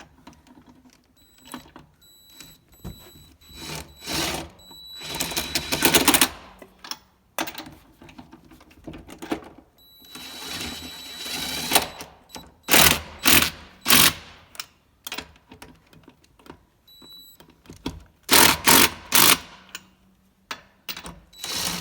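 Cordless impact driver running the spare tire's lug nuts down and hammering them tight, in several separate runs with pauses between, its motor whining as it spins.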